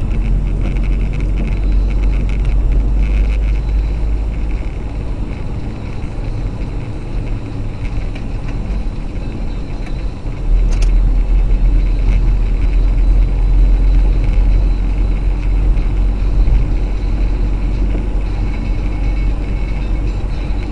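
A car driving on a wet road, heard from inside the cabin: a steady low rumble of engine and tyre noise with a hiss on top, growing louder about halfway through, with one brief click soon after.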